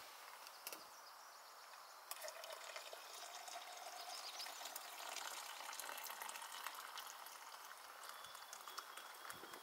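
Coffee poured from a French press into a stainless steel tumbler, a faint trickle of liquid that starts about two seconds in and keeps running.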